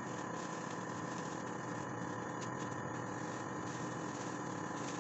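A steady background hum, with faint crinkling of thin disposable plastic gloves being handled and pulled on.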